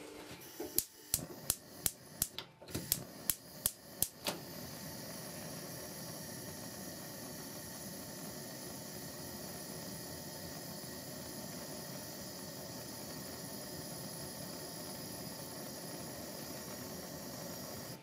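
Gas hob's spark igniter clicking about ten times in quick succession until the burner catches about four seconds in, then the lit gas burner hissing steadily.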